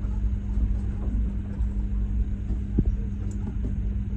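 Whale-watching boat's engine running steadily: a low rumble with a constant hum.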